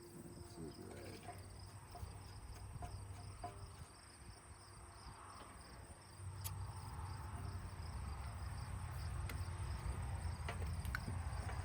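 Light metal clicks and taps of a wrench working fuel-line fittings, over a steady high insect-like trill. A low rumble grows louder about six seconds in.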